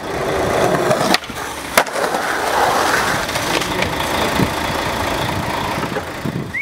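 Skateboard wheels and trucks running over rough concrete in a continuous rumble, with two sharp clacks of the board about a second in and again just under a second later.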